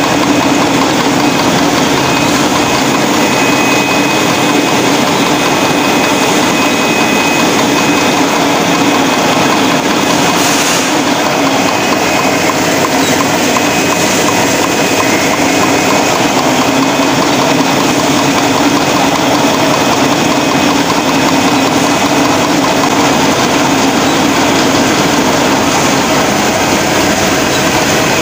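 Automated bottled-water line running: a rotary labelling machine wrapping labels onto plastic water bottles, a loud, steady mechanical din with a constant hum and a thin high whine.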